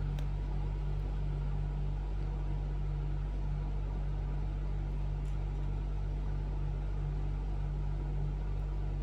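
Steady low electrical hum with a constant pitch, plus a few faint ticks.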